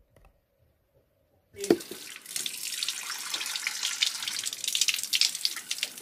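Near silence, then about a second and a half in a short thump and the steady splash of a thin stream of spring water falling from a metal spout in a stone wall, spattering onto the stones and into a cupped hand.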